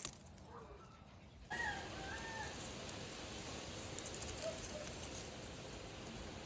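A short wavering animal call about a second and a half in, with a fainter one near the middle, over a steady hiss.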